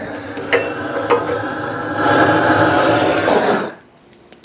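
Handheld gas torch with a yellow fuel cylinder burning steadily into a smoker's firebox to light the charcoal, getting louder about two seconds in and shutting off near the end.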